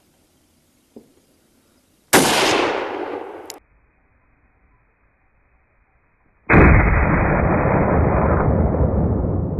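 A single rifle shot about two seconds in, with its echo rolling away until it cuts off abruptly. A few seconds later comes a second sudden, loud blast that carries on as a long, dull, muffled rumble.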